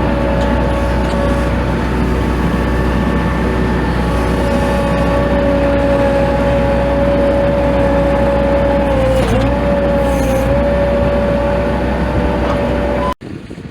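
Tractor engine running steadily under work, with a constant whine that dips briefly about nine seconds in. The sound cuts off abruptly near the end.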